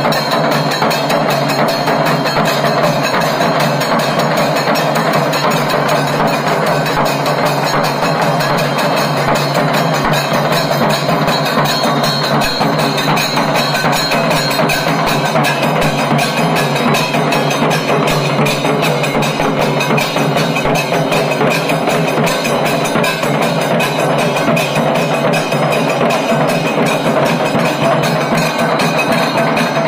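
Percussion-led music with drums and bright, clacking, bell-like strikes, playing continuously at an even loudness.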